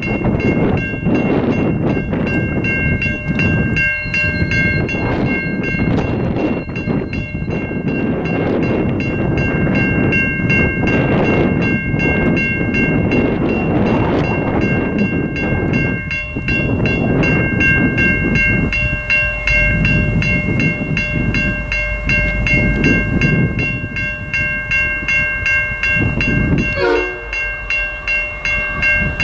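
Safetran Type 3 electronic level-crossing bell ringing rapidly and continuously while the boom gates come down, over a heavy low rumble.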